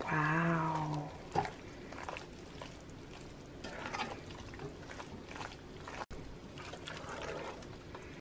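Wooden spoon stirring rigatoni through thick pesto in a metal pot: soft, wet, squishy stirring with a single knock of the spoon against the pot about a second and a half in. A brief pitched call, about a second long, opens it.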